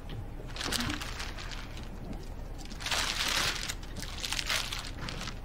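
Crinkling and rustling of a flower bouquet's plastic wrapping and a small gift card being handled. It comes in two bursts, about a second in and about three seconds in.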